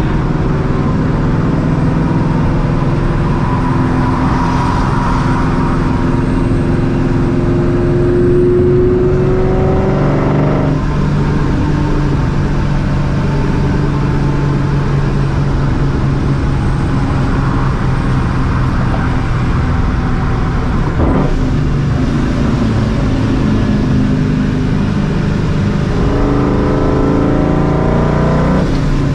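Straight-piped, Vortech-supercharged 4.6-litre two-valve V8 of a 2004 Ford Mustang GT under way, its exhaust note rising as it accelerates. The pitch climbs, breaks off about a third of the way in and again near two-thirds, and climbs again near the end, like pulls through the gears.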